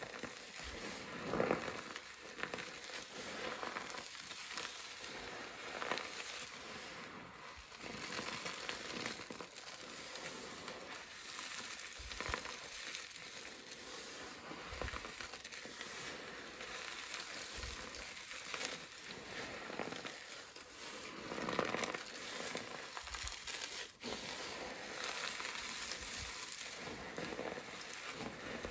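Hands scooping and squeezing a pile of crushed dry soap fragments mixed with powder, making a steady crunchy crackle, with louder crunches as handfuls are squeezed and pressed.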